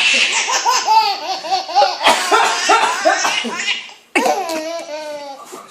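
A baby laughing hard in quick repeated bursts, pausing briefly about four seconds in, set off by an adult man's coughs mixed in among the laughs.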